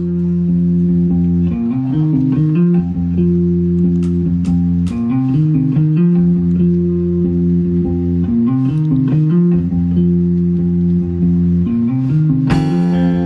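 Live rock band intro: guitar and bass guitar play slow, sustained chords that change every second or two over a steady low bass. A sharper, brighter chord hits near the end.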